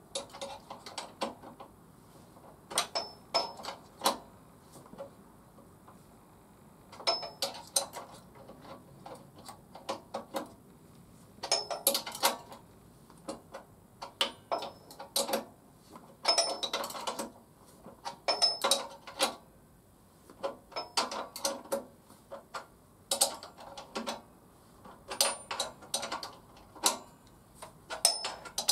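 Hand tool being worked on a metal fitting at a motorcycle's gearbox side: short runs of sharp metallic clicks and clinks, repeating every couple of seconds.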